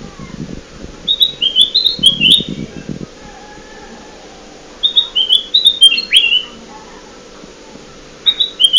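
Kutilang emas (a bulbul) lure call: a short phrase of quick, downward-slurred chirping notes, repeated three times about every three and a half seconds, the last starting near the end.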